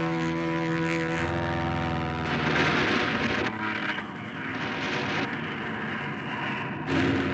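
Cartoon sound effect of a propeller fighter plane's engine droning and changing pitch as it dives. Bursts of machine-gun fire or flak cut in twice in the middle and again near the end.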